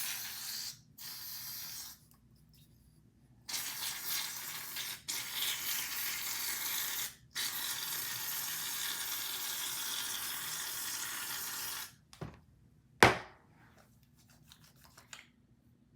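Aerosol hair-product can spraying in several hissing bursts of one to four seconds, the longest in the middle, then two sharp knocks a little before the end.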